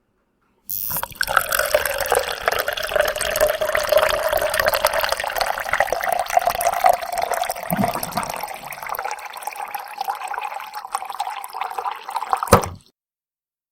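Water running out of a large bottled-water jug (botellón) into a container for about twelve seconds. The pitch rises slowly as the container fills. It stops suddenly near the end with a short knock.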